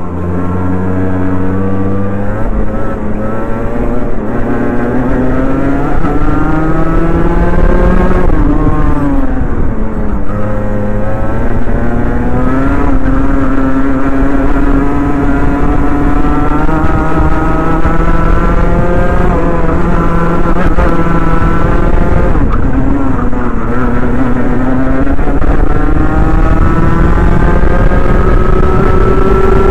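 Rotax Mini Max 125cc two-stroke kart engine, heard on board at full race pace. Its pitch climbs steadily as the kart accelerates and drops back each time it slows for a corner, several times over.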